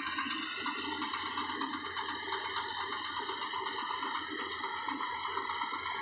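Small rice combine harvester running steadily while it cuts through the paddy: a continuous mechanical hum and rush with several steady high tones over it.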